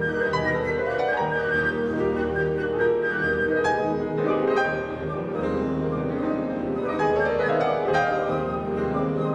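Grand piano playing a fast, dense concerto passage with a full symphony orchestra, strings and woodwinds sustaining beneath it, with several strongly accented chords.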